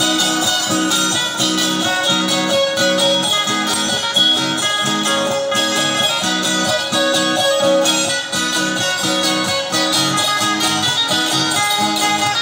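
Loud dance music: strummed plucked-string instruments keep a steady rhythm of about two strokes a second under a melody.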